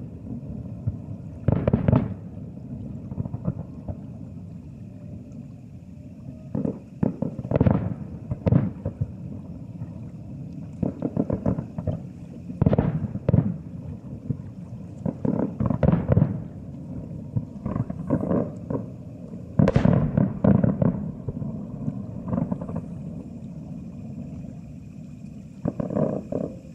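Aerial firework shells bursting about a kilometre away: a string of about twenty booms at uneven spacing, some in quick pairs and clusters, each trailing off into a low rumble. The heaviest volley comes about two-thirds of the way through.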